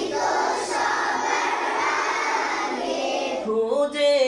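A crowd of many voices sounding together, a dense blended sound with no single clear melody, lasting about three and a half seconds. A solo male voice takes up the song again near the end.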